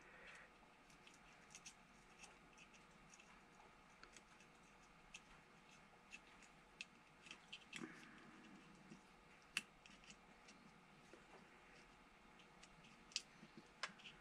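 Near silence with faint, scattered small clicks from small pliers working wires at a connector; a sharper click comes about two-thirds of the way in and another near the end.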